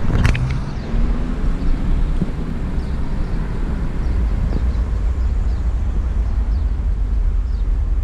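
Steady low rumble of wind buffeting the microphone on a moving bicycle.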